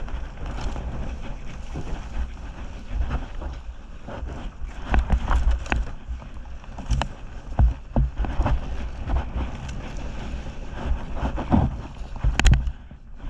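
Dirt bike engine running as the bike rides over a snowy trail, with wind buffeting the microphone and repeated knocks and clatter from the bike over bumps. A loudest knock comes near the end.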